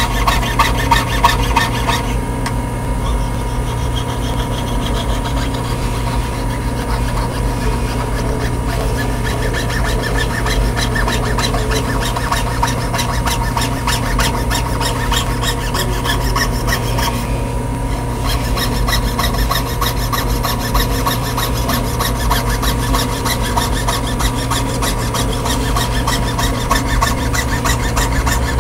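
Jeweller's piercing saw cutting a sheet-metal pendant on a wooden bench pin, the fine blade rasping in rapid, even back-and-forth strokes, with a brief pause about two-thirds of the way through.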